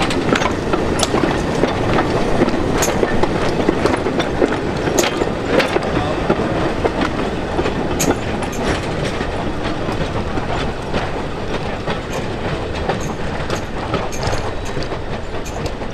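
Narrow-gauge slate wagons rolling past on the rails, a steady clatter of wheels with many sharp clicks and knocks, easing slightly as the train draws away.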